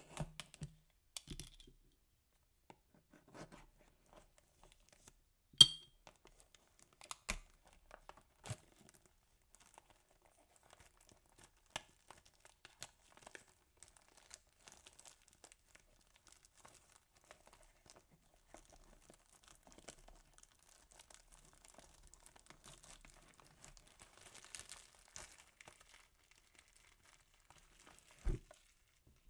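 Clear plastic shrink-wrap on a cardboard cake box being slit with a box cutter, peeled off and crumpled in the hand, a soft crackling broken by scattered sharp clicks. The loudest click is about six seconds in, and there is a knock near the end.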